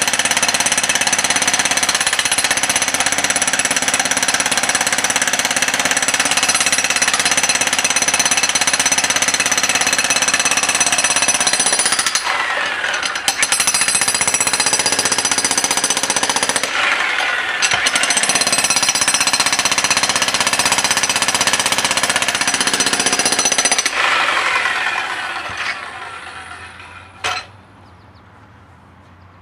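Jackhammer running continuously, with two brief let-ups about twelve and seventeen seconds in. It stops about twenty-four seconds in and dies away, followed by a single sharp knock near the end.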